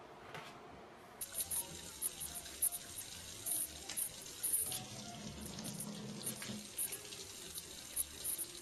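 Water running and splashing, starting about a second in, with small irregular splashes and drips on top.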